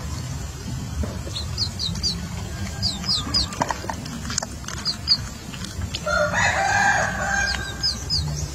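Young chicken peeping in short, high, falling chirps, often in pairs, and a rooster crowing once about six seconds in, over a low steady rumble.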